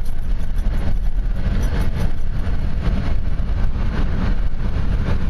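Steady low rumble of tyre and wind noise inside a moving car's cabin.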